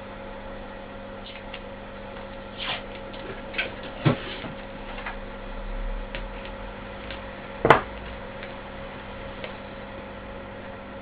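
Scattered light clicks and knocks over a steady electrical hum, with two sharper knocks about four seconds and nearly eight seconds in.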